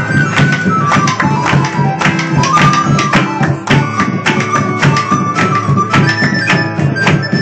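Live acoustic folk music: an acoustic guitar strummed in a steady rhythm under a single melody line with sliding notes, played on a harmonica.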